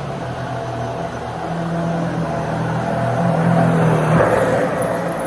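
Dyson Ball Multifloor 2 upright vacuum cleaner running: a steady motor hum over the rush of suction. It grows louder until about four seconds in, then eases.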